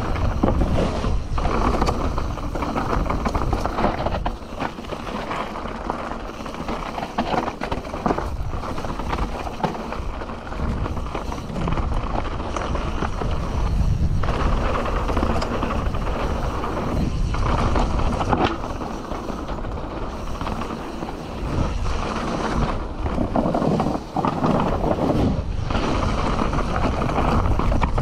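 Canyon Torque CF 9 mountain bike riding fast down a dirt trail: steady tyre noise over the ground, with frequent knocks and rattles as it hits bumps, and wind buffeting the camera's microphone.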